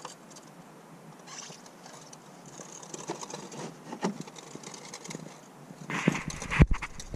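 Motor oil pouring faintly from a plastic jug through a plastic funnel into the engine's oil filler, with a few light clicks of the plastic jug being handled. About six seconds in, a louder, deeper noise starts.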